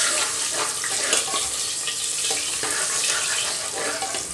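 Sliced garlic sizzling in hot mustard oil in a pressure cooker, being fried until golden-red. A steel ladle stirs it and scrapes the pot now and then.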